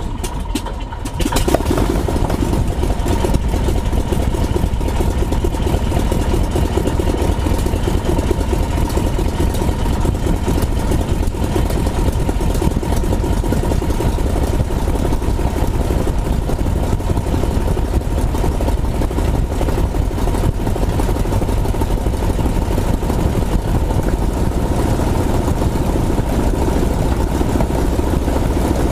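The reproduction Spirit of St. Louis's piston aero engine, heard from inside the cabin. It comes up sharply to a louder run about a second and a half in, then runs steadily.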